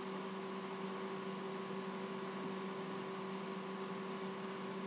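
Steady electrical hum: a few constant low tones under an even hiss, unchanging throughout.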